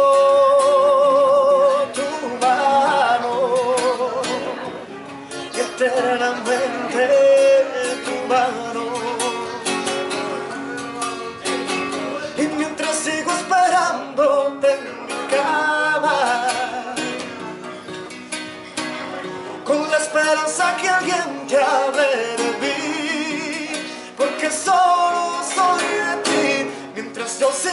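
Background music: a Spanish-language song, a singing voice over guitar accompaniment, opening on a long held note with vibrato.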